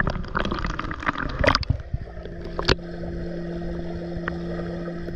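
Swimming-pool water lapping and splashing close to the microphone at the surface. About two seconds in, it turns to muffled underwater sound with a steady low hum.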